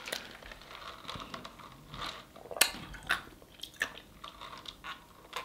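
Quiet, close-miked chewing and mouth sounds, then sips from a plastic cup. A few small clicks, the sharpest about two and a half seconds in.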